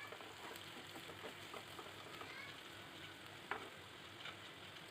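Chopped onions frying in hot oil in a kadai: a faint, even sizzle with scattered small crackles and one sharper click about three and a half seconds in.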